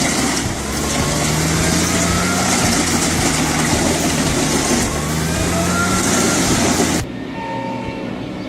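Large diesel-powered wood chipper running loud, its engine humming steadily under a dense rush of noise from the material being chipped. About seven seconds in, the sound cuts abruptly to a duller engine hum.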